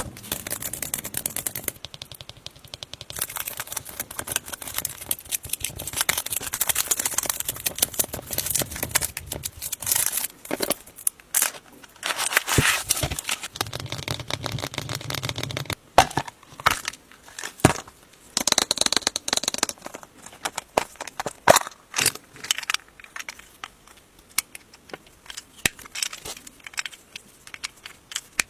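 Crinkling and tearing of a Kinder Surprise egg's foil wrapper being unwrapped for about the first sixteen seconds. After that comes a run of separate sharp clicks and snaps.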